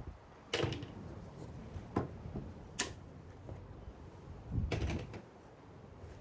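Five or so separate knocks and clicks of objects being handled and set down, with a short cluster of them near the end.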